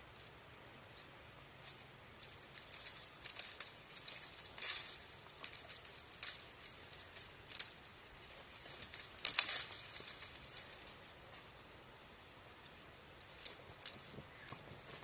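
Dry grass and twigs rustling and crackling close by as someone moves through brush: irregular clusters of sharp crackles, loudest a little past the middle, then a lull and a few more crackles near the end.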